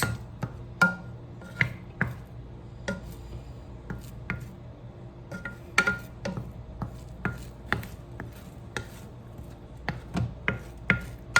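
A cooking utensil knocking and scraping against a frying pan at an irregular pace, about one or two knocks a second, as egg is stirred and broken up.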